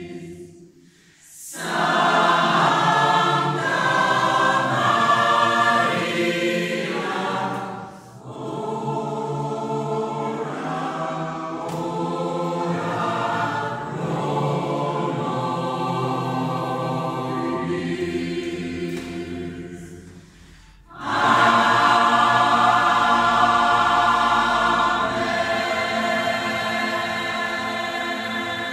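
Mixed choir of women's and men's voices singing in a church, in long phrases with three short breaks, loudest near the start and again about two-thirds through.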